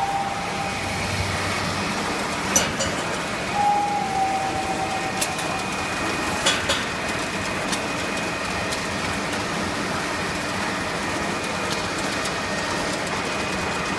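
Snack-pellet frying line running: a steady mechanical hum and hiss with a constant high whine, scattered clicks and knocks, and a brief squeal about four seconds in.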